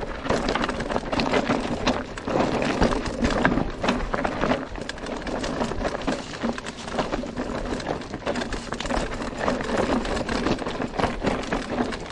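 Merida eONE-Sixty electric mountain bike rattling down a rocky singletrack: tyres crunching and knocking over loose stones, with a constant irregular clatter of chain and frame.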